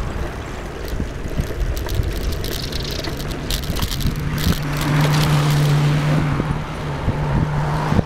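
Ride-along noise from a moving vehicle: wind on the microphone and frequent rattling knocks, with a steady engine hum that comes in about halfway through as the sound grows a little louder.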